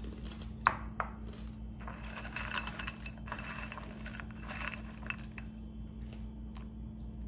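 Crispy air-fried wheel-shaped pasta pieces clinking against a glass bowl and rattling together as fingers pick them up, drop them and stir them: two sharp clinks about a second in, then two stretches of rattling, around two seconds and four and a half seconds in.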